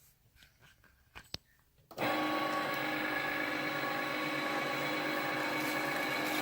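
Cricut Explore 2 cutting machine grinding: a sharp click, then about two seconds in a loud, steady mechanical grind of its motor starts suddenly and runs for about four seconds before cutting off near the end.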